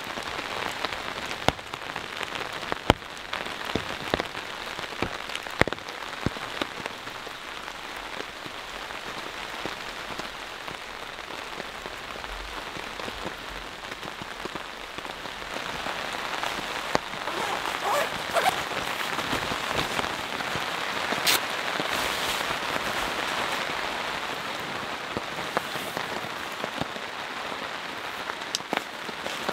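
Rain pouring steadily, with many sharp single drops tapping on the tarp overhead. It grows a little louder past the middle.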